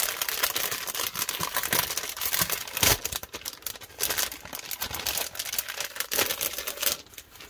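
Clear plastic cellophane sleeve crinkling and rustling as it is opened and a stack of printed sheets is slid out. There is a sharp thump about three seconds in.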